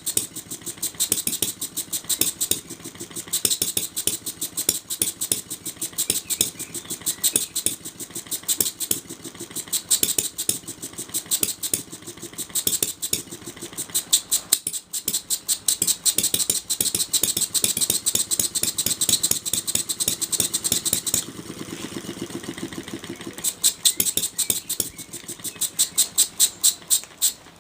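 Small model four-stroke vertical engine (Jonas, built from Bengs Modellbau castings) running with a rapid, even beat of sharp firing pops. The beat softens for a couple of seconds about two-thirds through, and near the end the strokes come further apart as the engine slows down.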